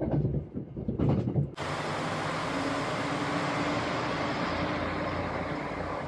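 Brief uneven bumps and rustles, then about one and a half seconds in an abrupt switch to steady vehicle running noise: an even rush with a faint low hum.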